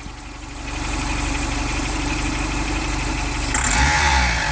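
Mitsubishi Delica's G63B 8-valve fuel-injected engine running, its speed picking up about three and a half seconds in. Its knock comes from the camshaft area, grows with engine speed and has survived a full replacement of the hydraulic lifters.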